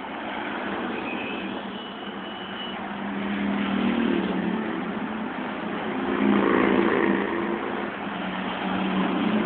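Engines of large motorcade vehicles, a passenger van and an armored truck, driving past at low speed. The engine hum swells twice, loudest about two-thirds of the way through as the truck goes by.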